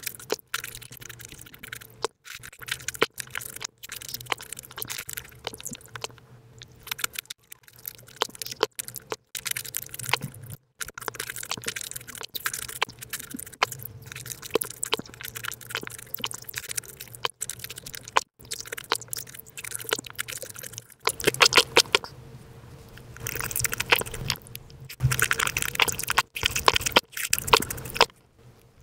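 Close-miked eating sounds of fresh fruit, such as grapes and pineapple, played back at high speed: rapid wet chewing, crunching and mouth clicks. The sound is broken by several brief dropouts and grows louder in the last third.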